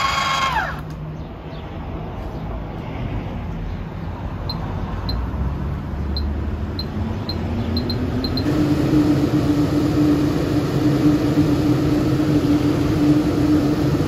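MaxxAir MaxxFan roof vent fan running: after a few faint clicks, its motor hum rises in pitch over about two seconds and then holds steady with the rush of moving air, louder than before.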